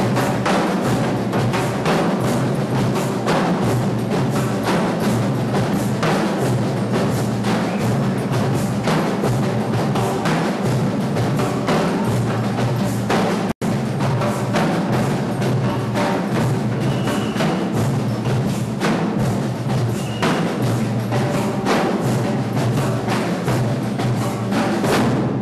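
A drum group playing percussion together in a dense, steady rhythm of drum strokes, with a split-second break about halfway through.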